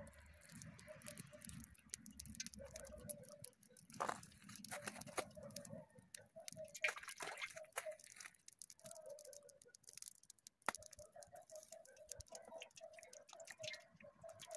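Vegetable oil trickling from a plastic bottle into an empty cast-iron kazan, the bottle glugging in quick, even pulses that stop and start again. A few sharp clicks stand out, about 4 s in, near 7 s and near 11 s.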